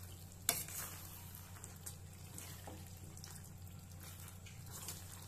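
A steel ladle faintly stirring and scraping thick tomato pickle in a steel pan, with one sharp clink of the ladle against the pan about half a second in and a few lighter ticks after.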